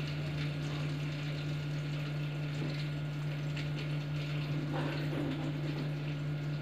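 A steady low electrical hum with faint room noise, and a few faint light clicks.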